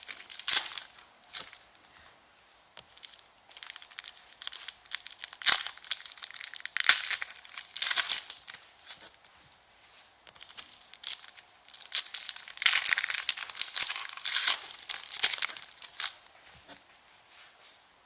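Trading card packs being torn open, their foil wrappers crinkling and crumpling in several irregular bursts.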